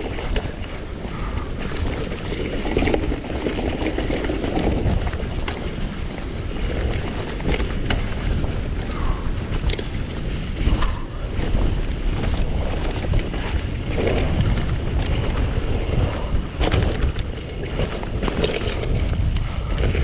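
Mountain bike ridden down a rough trail: tyres rumbling over dirt and rocks, with many quick rattles and knocks from the bike, and wind buffeting the microphone.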